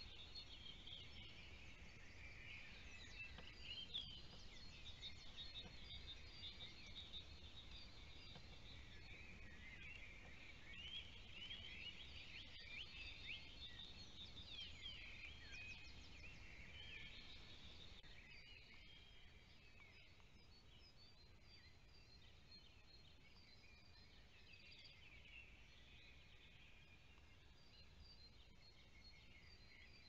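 Several small songbirds chirping at once, many short quick calls overlapping, busiest for the first two-thirds and thinning out after that, over a faint low rumble.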